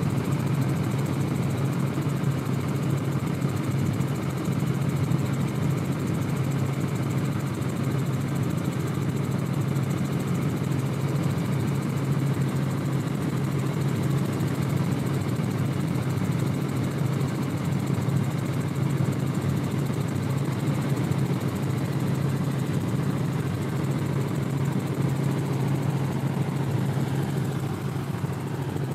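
An engine running steadily at one speed, a constant drone with a strong low hum.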